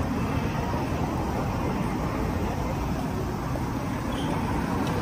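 Steady city street noise, mostly road traffic passing on a busy main road.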